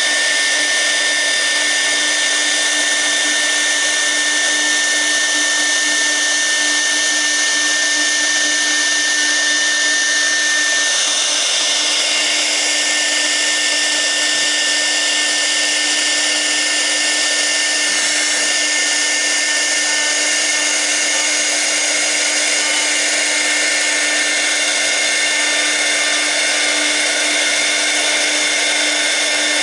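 6 kW air-cooled CNC router spindle running at speed with a steady whine, a V-bit carving into the workpiece with a continuous hiss of cutting.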